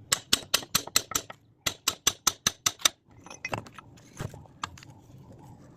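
Quick, sharp hammer blows on metal, about five a second, in two runs of roughly seven strikes each, then a few scattered knocks. The blows are being used to straighten a bent steering part.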